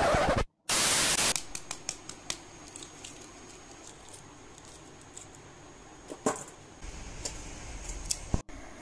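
Two short loud bursts of noise in the first second and a half. Then the faint small clicks and crackles of hard-boiled eggs being peeled by hand over stainless steel bowls, with a sharper click about six seconds in and a few more near the end.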